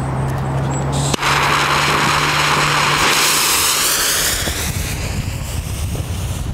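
The fuse of a Lupo 26 Italian firecracker is lit with a sharp click about a second in, then hisses loudly as it burns and throws sparks, thinning out over the next few seconds. A steady low hum runs underneath.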